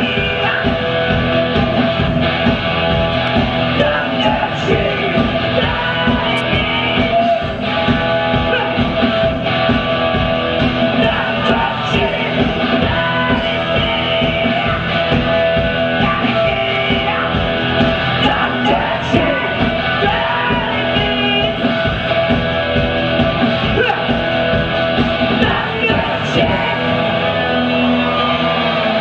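Live rock band playing: electric guitars, bass and a driving drum beat, with a male singer singing and yelling into the microphone.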